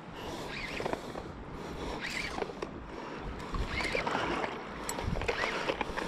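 Shallow water sloshing and splashing at a reef edge, with a person's heavy breathing under the strain of fighting a big fish.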